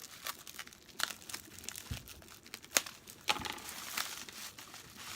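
Bubble wrap being pulled away from a small box, crinkling with scattered sharp crackles; the loudest is a sharp snap a little under halfway through, with another about half a second later.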